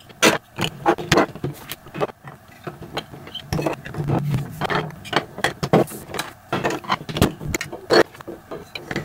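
Plastic LEGO Duplo bricks clicking together and clacking on a tabletop as they are snapped into place: a quick, irregular run of clicks.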